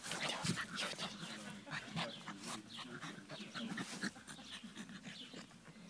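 Chow chow puppy panting close to the microphone, amid many short clicks and rustles.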